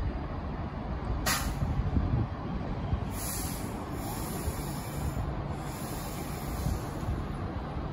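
Avanti West Coast Class 390 Pendolino electric train at the platform with a steady low hum. A short burst of air hiss comes about a second in, then longer hissing of released air from about three seconds in until near the end.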